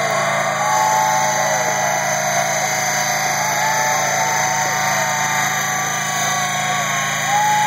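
Live electronic dance music on a festival sound system, heard from within the crowd: a steady low bass drone under wailing, siren-like gliding tones.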